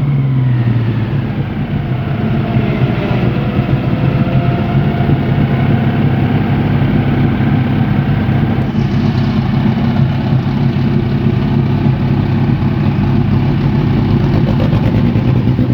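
Ex-Stock Car Chevrolet Opala's six-cylinder engine dropping back from a rev in the first second into a steady idle.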